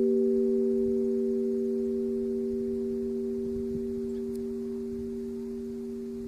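Lighthouse fog bell humming on after a strike: a low chord of a few steady tones, slowly and evenly fading, with no new strike.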